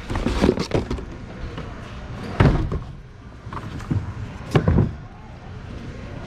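Thuds and knocks of goods being handled and dropped while rummaging through bins of second-hand items, about five or six sudden knocks over a steady background rumble.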